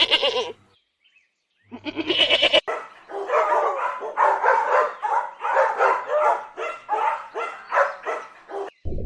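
Animal calls: a goat bleating at the start and again about two seconds in, then a quick run of about a dozen short, repeated calls that stops just before the end.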